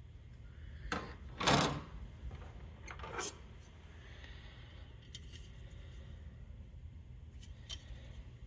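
Plastic model-kit parts being handled: a few short rustles, the loudest about a second and a half in, then faint clicks, over a low steady hum.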